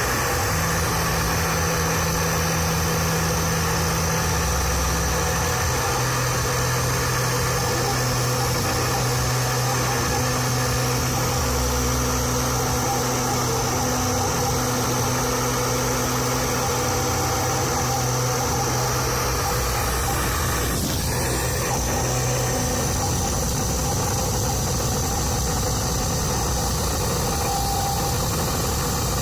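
A CNC 3040 router milling a PCB with a 0.5 mm V-bit: the spindle runs with a steady high whine, under a low motor hum that shifts pitch every few seconds as the axes change speed and direction.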